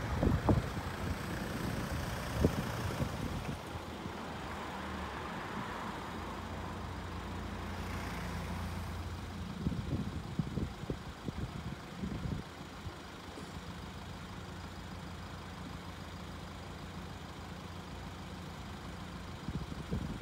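Car engine idling close by at a closed railway level crossing, a steady low hum, with wind buffeting the microphone in the first few seconds and a few short knocks about halfway through.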